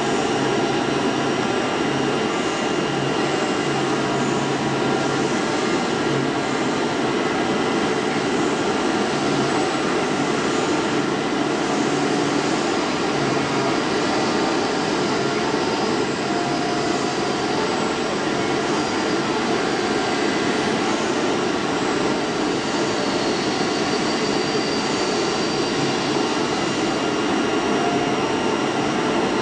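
DCZ70 flatbed digital cutting machine running while its oscillating-knife head cuts sheet material. It gives a steady, loud rushing drone with several fixed whining tones, and a low hum that comes and goes during the first half.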